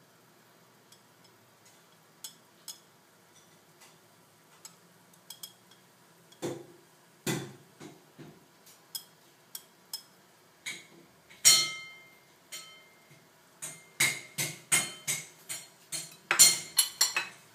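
Kitchen utensils clinking against plates and a pan: scattered sharp clinks with brief ringing, sparse at first and then a quick run of louder clatter in the last few seconds.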